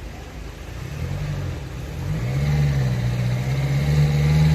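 A motor vehicle engine running close by. Its note rises about a second in and again a little later, then holds steady and grows louder toward the end.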